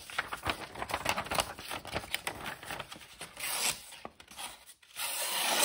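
Flat-ground CPM 20CV steel blade of a folding knife slicing through a sheet of paper: a scratchy, rasping cut made of many small crackling strokes, with a longer, louder stroke near the end. The edge is not super duper sharp, with one spot not doing a great job of cutting.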